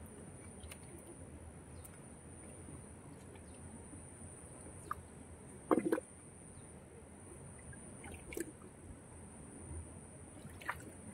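Hands groping for fish in a shallow pool of muddy water, making a few short splashes and squelches of water and mud; the loudest comes about six seconds in. A steady thin high tone sits underneath throughout.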